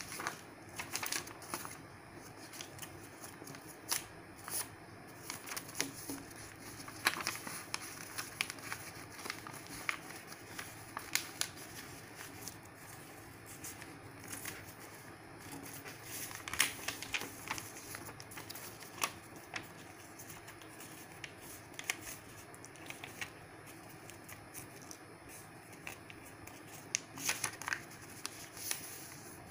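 A sheet of printer paper being folded and creased by hand against a wooden tabletop: irregular soft rustles and short sharp crinkles as the folds are pressed flat.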